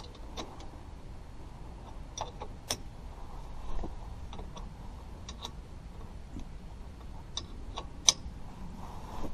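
Irregular metallic clicks of a 14 mm wrench tightening the bottom bolt of a rear brake caliper, a few clicks a second apart, the sharpest near the end.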